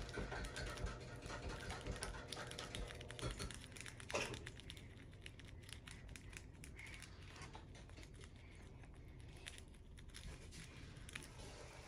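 Faint crinkling of clear plastic packaging and small clicks of plastic slime tubs being handled, with a brief rising squeak about four seconds in.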